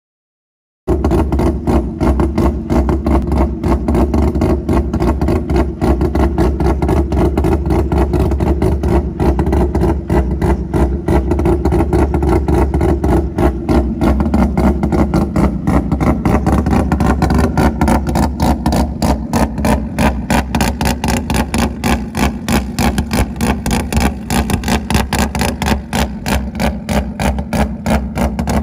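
Mazda 13B two-rotor peripheral-port rotary engine of an open-wheel race car idling with a rapid, lumpy braap. It starts about a second in. The idle settles slightly lower and more uneven about two thirds of the way through.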